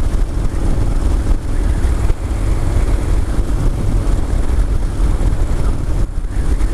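Yamaha Bolt XV950R's air-cooled V-twin engine running steadily at road speed, mixed with low wind rumble on the microphone.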